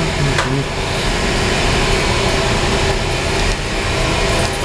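Steady drone of running boiler-room machinery, with a light click about half a second in.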